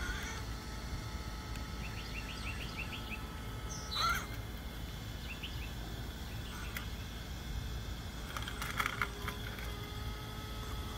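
Birds chirping: a quick run of short chirps, then one louder call about four seconds in. Under them runs a faint steady whine from the RC rock crawler's brushless Castle 2280kv motor as it creeps up the steps. There is a short patch of clicks near the end.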